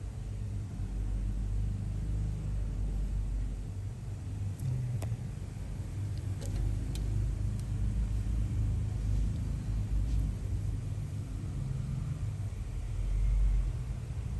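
Steady low rumble with a few faint sharp clicks about five to seven seconds in.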